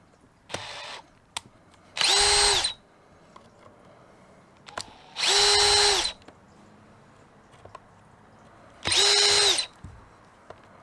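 Power drill spinning in short bursts: one quieter run about half a second in, then three louder runs of under a second each, each a steady whine that spins up and winds down quickly. It is backing out the tamper-proof security screws of a battery pack's plastic case.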